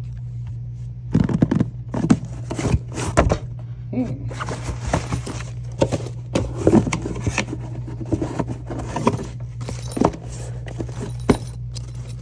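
Handling noises from a pistol being handled: irregular clicks, scrapes and light knocks, over a steady low hum.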